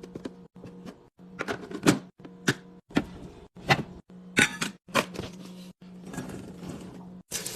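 Quick clicks, knocks and taps of containers and jars being handled and set down while a refrigerator is organized, over a low steady hum. The sound cuts out abruptly several times between short clips.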